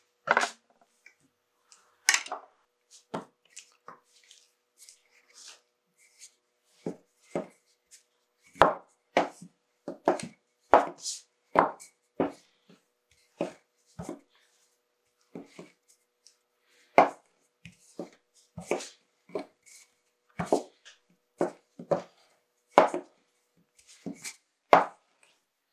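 Hands patting and pressing egg pasta dough flat on a floured wooden board: irregular sharp taps and pats, about one or two a second.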